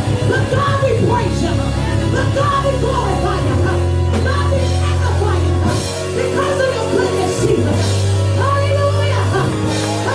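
Live gospel praise-and-worship music: a band holding long bass chords that change every second or two, with voices singing over it.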